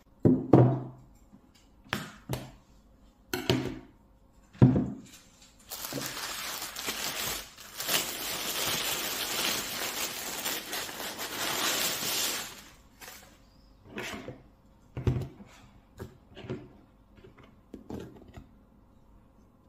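A thud about half a second in and a few sharp knocks. Then about six seconds of a plastic bread bag crinkling as a loaf is pulled out of it, then several lighter knocks of the loaf and a knife on a plastic chopping board.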